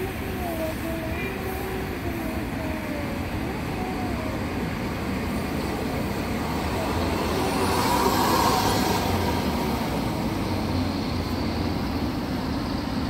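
Mercedes-Benz 1626 coach's diesel engine running as the bus pulls slowly away across the terminal apron. The rumble swells for a moment about eight seconds in.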